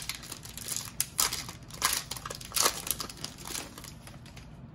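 Foil wrapper of a Panini Mosaic basketball card pack being torn open and crinkled by hand: irregular crackling and rustling that dies down near the end.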